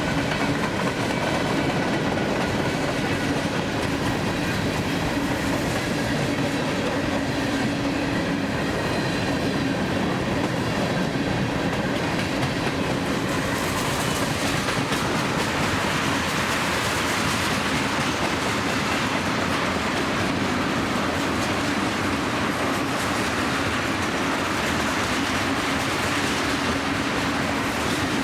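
Long freight train of grain cars rolling past, a steady, unbroken noise of wheels on rail. The high hiss of the wheels grows stronger about halfway through.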